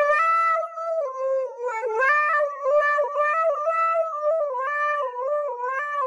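Husky howling into a handheld karaoke microphone: one long, wavering howl that steps up and down in pitch almost like a tune, with brief breaks and dips.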